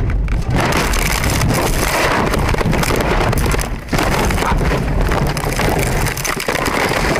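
A car crashing and tumbling off the road, heard from inside the cabin: loud, continuous crunching and banging of the body and glass from about half a second in, with a brief lull near the middle.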